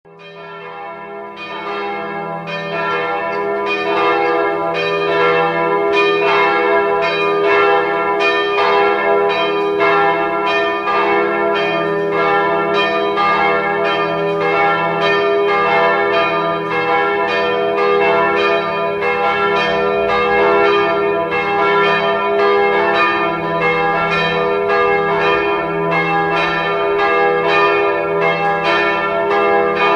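Church bells pealing, many strikes in quick succession over a steady hum, fading in over the first few seconds; rung for the unveiling of the altar's Marian image.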